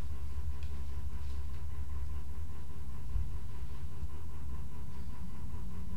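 Steady low mechanical hum, like a running fan or air handler, with a faint thin whine above it and no distinct handling sounds standing out.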